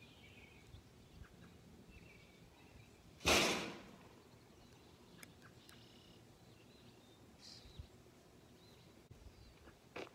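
Quiet rural outdoor ambience with faint bird chirps, broken about three seconds in by one brief loud whoosh that fades within about half a second.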